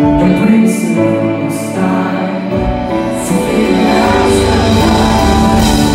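Male pop singer singing live into a handheld microphone over band accompaniment, with the bass coming in about a second in and filling out further about two and a half seconds in.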